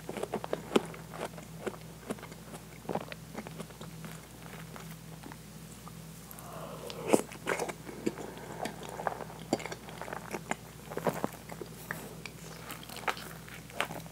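Close-miked chewing of soft, soggy French toast with whipped cream: wet mouth clicks and smacks throughout, with a loud smack about seven seconds in. A faint steady hum sits underneath.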